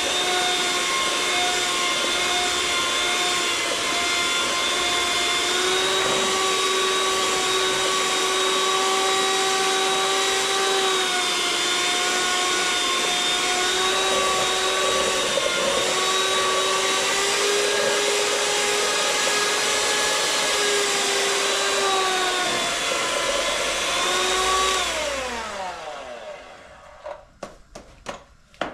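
Electric hand mixer beating cake batter, its motor whining steadily with slight shifts in speed. About 25 seconds in it is switched off and winds down with a falling pitch, followed by a few light knocks.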